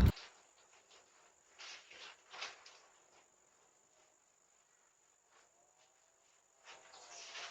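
Crickets trilling faintly and steadily, with a few soft rustling scuffs, the loudest about two and a half seconds in and again near the end.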